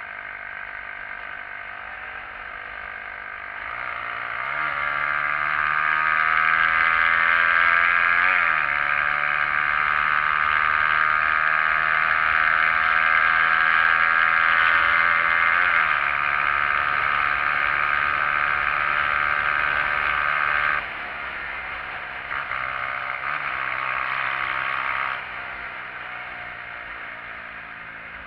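SYM XS125-K motorcycle's single-cylinder engine under way. Revs rise about four seconds in, drop with an upshift around eight seconds and again around sixteen seconds, then the throttle closes about twenty-one seconds in and the engine winds down.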